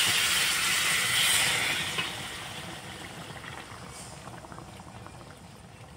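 Hot water poured into a hot steel kadai of frying masala and egg-cauliflower koftas, hissing and sizzling loudly for about two seconds and then fading. This is the water going in to make the curry's gravy.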